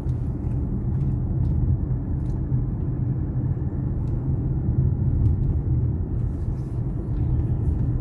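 Steady low rumble of a car driving slowly, heard from inside the cabin: engine and tyre noise.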